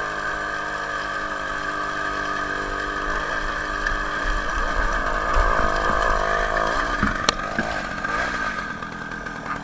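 Homemade moped's Ural chainsaw two-stroke engine running under load at a steady pitch. About seven seconds in its steady note breaks up, with a sharp click, and the engine runs unevenly after that.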